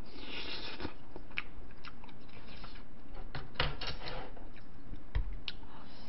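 Chewing a mouthful of mixed rice, with scattered sharp clicks and scrapes of a spoon against a large glass bowl as more bibimbap is scooped up.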